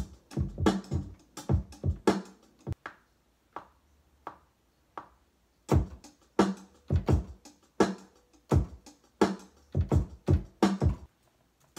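Electronic drum-machine hits, played from a MIDI keyboard with the melody muted, so only the drums sound. The hits come unevenly, in short clusters with a sparser stretch in the middle.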